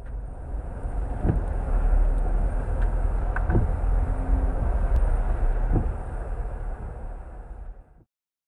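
Car interior noise while driving on a wet street: a steady low rumble of engine and tyres, with the windshield wipers sweeping across the glass three times, about two seconds apart. It fades out shortly before the end.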